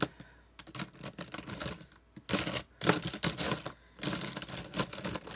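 Hands rummaging through makeup brushes and other items on a table: an irregular run of clicks, knocks and rustles, busiest about the middle.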